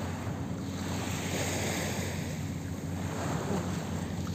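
Small waves washing on a sandy shore, a steady surf hiss, with wind buffeting the microphone in a low rumble.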